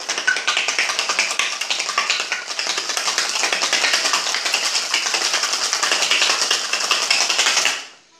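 Ice rattling inside a metal cocktail shaker tin as it is shaken hard, a fast continuous clatter that stops abruptly near the end.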